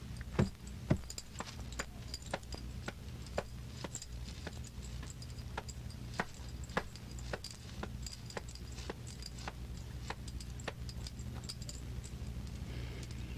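Steady low hum with scattered, irregular clicks and pops: the background noise of a worn optical film soundtrack, with no dialogue or music.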